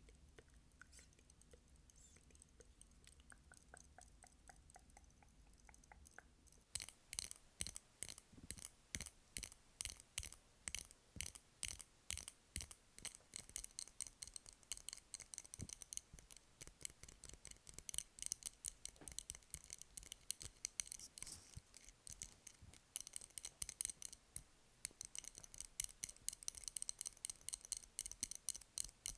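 Rapid, crisp tapping on a candle, several taps a second, starting about seven seconds in after a few faint ticks.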